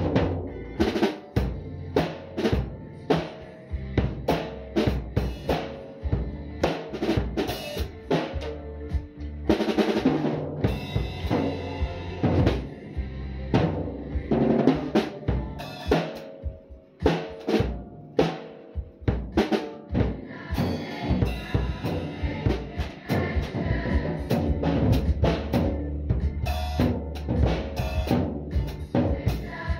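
Acoustic drum kit played in a steady beat (kick, snare and cymbals) along to a recorded song playing in the room.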